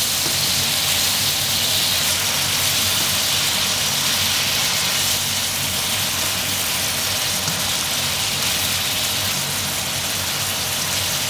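Steady sizzling of chicken, shrimp, sausage and leafy greens stir-frying in a hot wok as a spatula tosses them, over a low steady hum.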